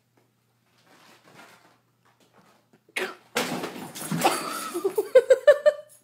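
A sudden thump about three seconds in, then a person laughing hard in quick bursts that climb in pitch.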